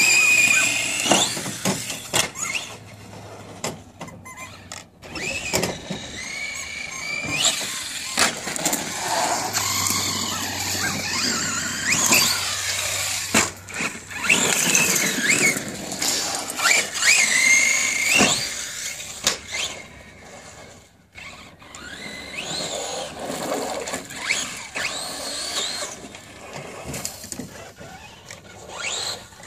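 DHK Zombie 8E brushless RC truggy being driven hard: the electric motor's high whine rises and falls again and again as it accelerates and slows, with noisy bursts as the tyres scrabble over concrete and gravel.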